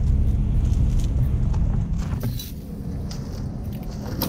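Strong wind buffeting the microphone, a heavy low rumble that eases about two seconds in, with a few light clicks over it.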